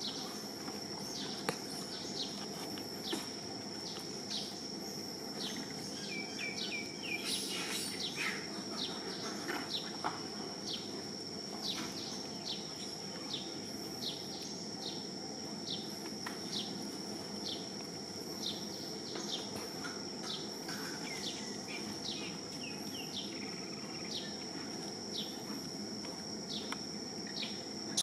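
Forest ambience: a steady high insect drone, a short falling chirp repeating about every two-thirds of a second, and a few scattered bird calls over a low hum of background noise.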